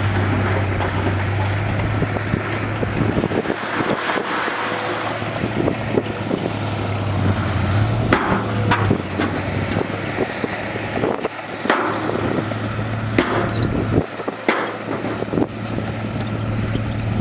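Heavy diesel earthmoving machinery running steadily, with scattered sharp clanks and knocks in the second half.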